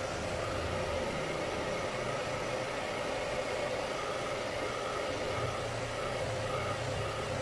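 Handheld hair dryer blowing steadily, drying freshly coated photo emulsion on a screen-printing screen.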